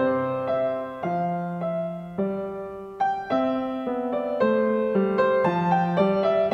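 Solo piano playing a simple melody over chords in C major, each note struck and left to ring and fade.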